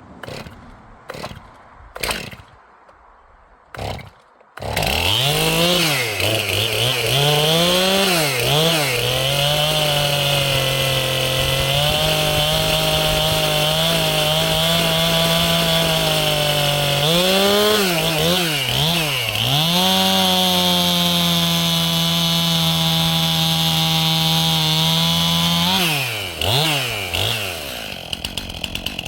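Stihl MS 271 chainsaw's 50.2 cc two-stroke engine being pull-started after sitting unused for a while. Several short pulls come before it catches about four and a half seconds in. It then runs at high revs, dropping and revving back up a few times, and falls back unevenly near the end.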